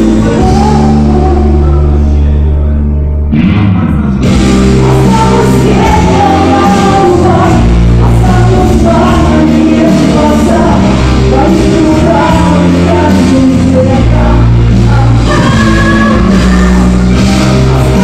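A woman singing live into a handheld microphone over a loud rock-style backing track played through PA speakers, recorded on a phone. The accompaniment thins out briefly about three seconds in, then comes back in fully just after four seconds.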